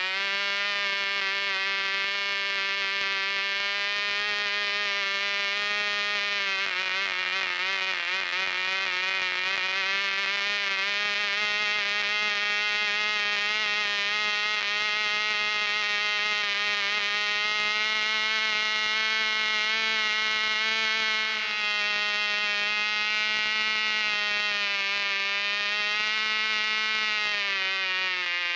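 Cox .049 Babe Bee glow engine, a tiny two-stroke, running flat out at about 13,000 rpm on a 6x3 propeller with its muffler wide open: a loud, steady, high-pitched buzz. The pitch wavers briefly early on, then drops near the end as the revs fall away.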